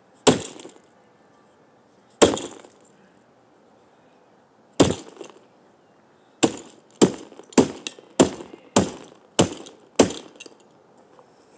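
A brick slammed down again and again onto a broken Furby toy and its plastic shell. There are three hard blows about two seconds apart, then seven quicker ones about half a second apart.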